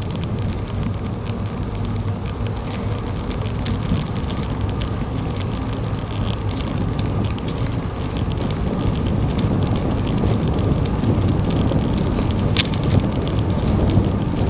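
Wind buffeting the microphone of a bicycle-mounted camera, with the rumble of bicycle tyres rolling on an asphalt trail. Scattered small clicks and rattles run through it, with one sharper click near the end.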